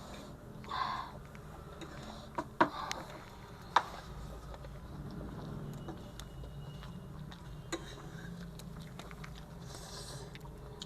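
Mukbang eating sounds: a few sharp clicks of utensils against a dish over a low room background, with a short breathy sniff near the end.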